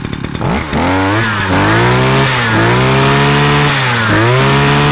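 BCH 400T brush cutter's two-stroke engine revved up from idle about half a second in and held at high revs, the pitch dipping briefly about three times as the throttle is eased and opened again.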